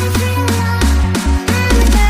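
Background electronic dance music with a deep bass line that changes note in steps and a synth melody above it.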